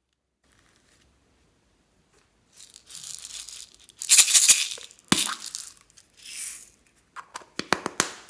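Irregular rattling, crackling bursts of small foam beads and slime being handled, with a few sharp clicks near the end. The loudest burst comes about four seconds in, after a silent start.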